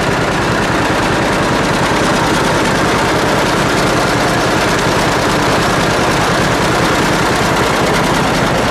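Old John Deere tractor's engine running steadily, a loud fast even chatter of firing pulses.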